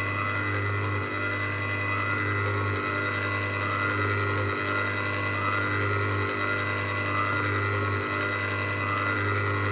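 Small electric ice cream maker's motor running steadily, churning caramel ice cream mixture that is already getting thick. Its hum dips briefly at a regular beat, a little under every two seconds.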